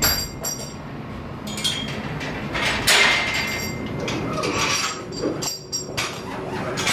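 A string of metallic clanks and clinks, several of them ringing on briefly.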